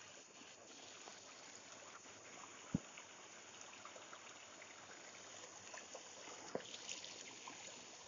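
Small rocky stream running and splashing in little cascades between boulders, a faint steady rush of water with small splashes. A single sharp knock sounds a little under three seconds in, and a smaller one near seven seconds.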